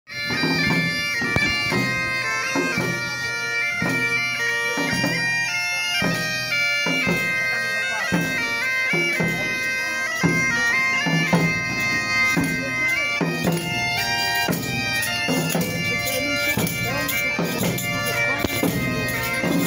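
Galician bagpipe (gaita galega) playing a processional melody over its steady drone, with a drum beating a regular pulse under it.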